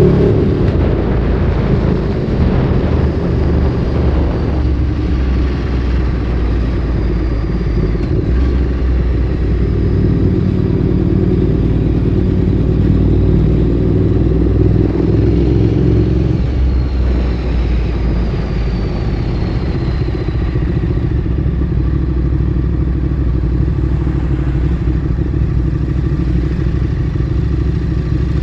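Ducati Streetfighter 848's L-twin engine through a Termignoni exhaust, running at low, fairly steady revs, with the engine note changing about five seconds in and again around the middle.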